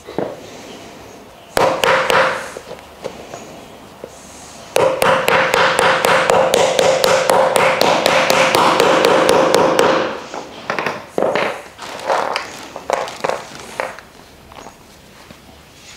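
Hammer tapping wooden plant-stand parts to knock them together. A short burst of taps comes about two seconds in, then a fast, even run of about six taps a second with a ringing note for about five seconds, then a few scattered knocks.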